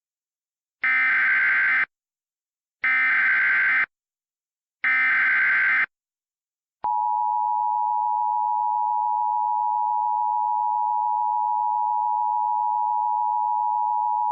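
Emergency Alert System SAME header: three identical one-second bursts of warbling data tones, a second apart. The steady two-tone EAS attention signal (853 and 960 Hz) follows about seven seconds in. Together they open an alert for a flash flood warning.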